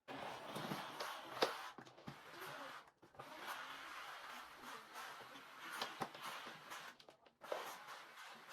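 Steam mop swishing and hissing as it is pushed across a floor, with light clicks of the mop head. The sound stops briefly twice.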